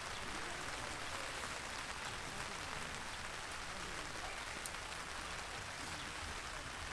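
Steady rain falling on a tent, heard from inside as an even hiss.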